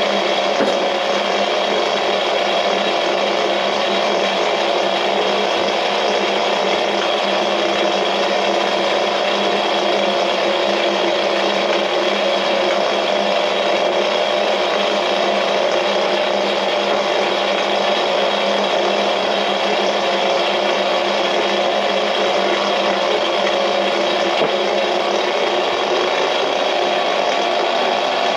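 A small electric motor running steadily and unbroken, with a few fixed tones in its hum.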